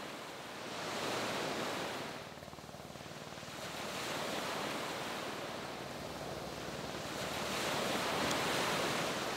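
Sea surf washing onto the shore, swelling and fading three times.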